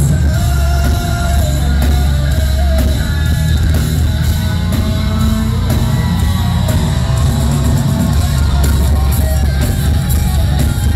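A heavy metal band playing live at full volume: distorted electric guitars, bass and a pounding drum kit, with a wavering melody line over them.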